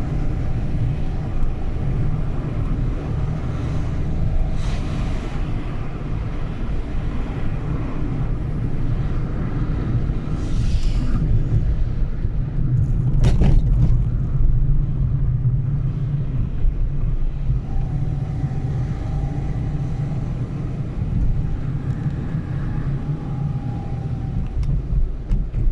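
Steady low rumble of a moving car driving along a road, with a single sharp click about halfway through.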